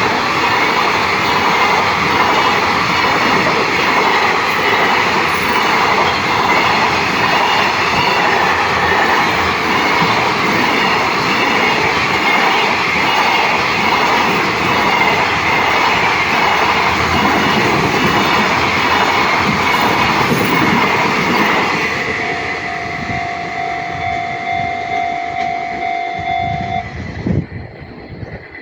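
A JR Tokaido Line train passing over a level crossing, its wheels rumbling and clattering loudly for about twenty seconds before the sound fades. As it dies away, a steady tone sounds for several seconds.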